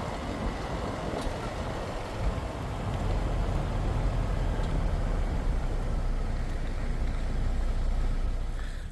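Jeep driving along a town road: a steady low rumble of engine and tyre noise, rising a little about three seconds in.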